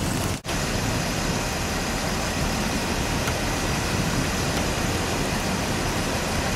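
Steady roadside noise of vehicles idling, broken by a brief dropout about half a second in.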